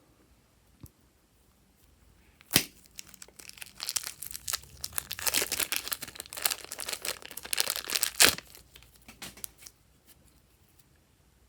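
Slime worked by hand, giving a sharp click, then about five seconds of dense crackling and popping that ends in a loud pop, followed by a few scattered clicks.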